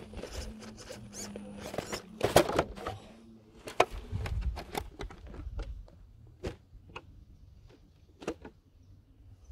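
Handling clatter: a run of sharp knocks, clicks and scrapes as a hand catches the Ecto RC crawler truck on the rock and the camera is moved about, loudest about two and a half seconds and four seconds in. A faint steady hum sits under the first three seconds.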